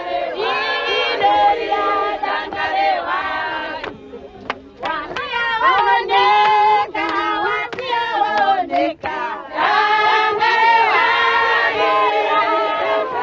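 A group of voices, mostly women's, singing together in several parts, with a brief lull about four seconds in.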